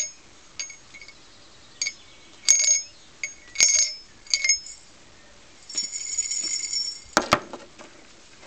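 A small metal bell ringing in short, irregular rings, then one longer ring of over a second. A sharp knock follows.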